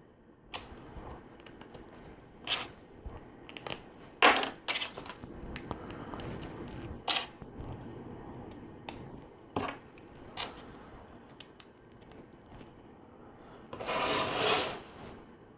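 Plastic LEGO bricks being handled and snapped together, with scattered sharp clicks and short scrapes of pieces moved on a table, and a longer, louder stretch of rummaging among loose pieces near the end.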